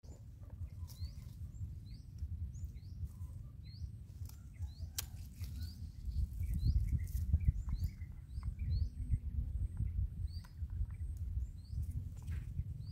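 A small bird chirping repeatedly, short high rising chirps every second or so, over a steady low rumble, with a few light rustles and clicks.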